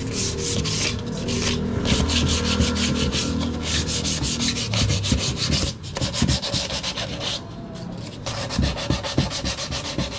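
Hand sanding of wood with sandpaper: quick back-and-forth rubbing strokes, several a second, with a few brief pauses.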